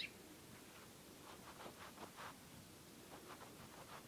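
Near silence, with faint scattered scratching and rustling from kittens shifting on carpet, and a short high-pitched chirp right at the start.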